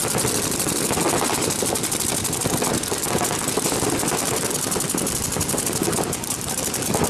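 Rapid, continuous paintball marker fire, many shots a second, with the pops running together into a steady rattle.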